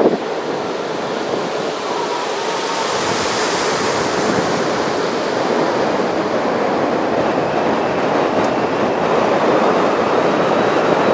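Wind rushing over the microphone of a camera on a mountain bike descending a paved road at speed: a steady rushing noise that grows slowly louder.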